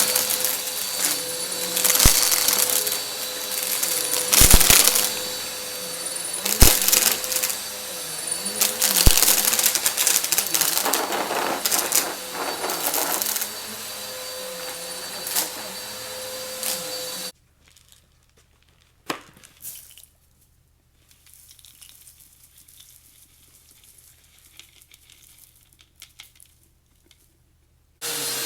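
Vacuum cleaner running with a steady whine while sucking up confetti, which crackles and crunches through it in irregular bursts. About two-thirds of the way through, the sound cuts off suddenly to a much quieter stretch with a few faint clicks and taps, and the vacuum starts again right at the end.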